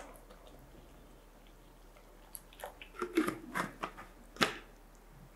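Thick masala gravy simmering in a kadai, popping and spluttering in a short irregular run of wet pops about halfway through, the last one the loudest.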